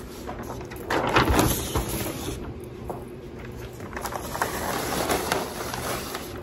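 Paper rustling and crinkling with small knocks as anchor charts and posters are handled and pulled down from a wall, loudest about a second in.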